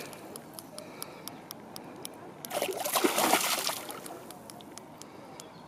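Hooked northern pike thrashing at the surface, water splashing and sloshing, with one louder burst of splashing about two and a half seconds in lasting over a second.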